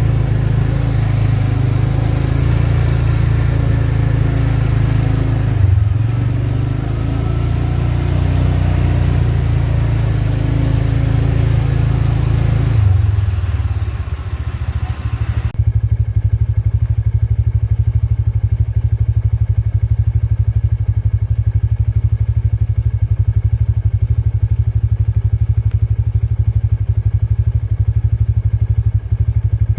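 Kubota M7040 tractor's diesel engine running steadily, with the Case 8430 baler working behind it. About halfway through, the sound turns dull and muffled, losing its high end, leaving a steady low rumble with a fast pulsing.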